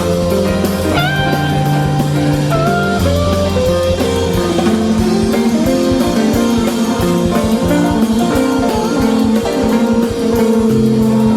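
Instrumental stretch of a rock song: a guitar melody with a few bent notes over a bass line and a drum kit.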